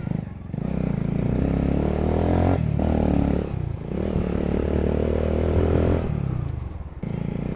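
Motorcycle engine with a loud exhaust pulling under way, revving up, dipping briefly about two and a half seconds in, then holding high revs again before easing off near the end.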